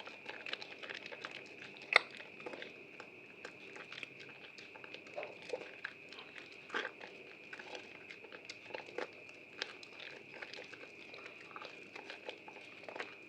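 Soaked, softened bar soap being squeezed and lathered close up, giving a dense run of small wet crackles and crunchy squishes, with one sharper snap about two seconds in. A faint steady high whine runs underneath.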